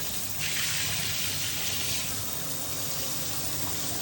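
Running water pouring onto a tegu lizard being bathed, a steady rushing splash that gets brighter and a little louder from about half a second in until about two seconds.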